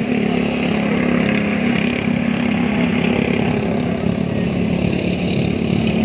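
Racing riding lawn mower engine running at a steady, unchanging pitch as the mower laps the dirt track.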